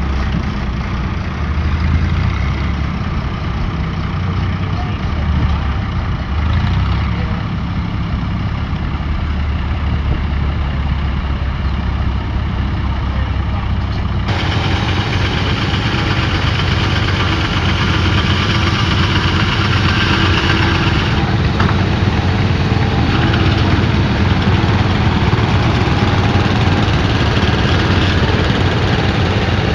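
Engine running steadily at idle with a deep low hum. About halfway through, a louder, hissier noise joins it and carries on.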